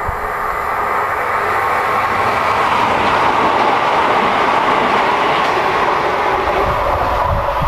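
A Southern electric multiple-unit passenger train passing close by and running away down the line: a rush of wheels on rail that builds over the first few seconds, stays loud through the middle and eases slightly near the end.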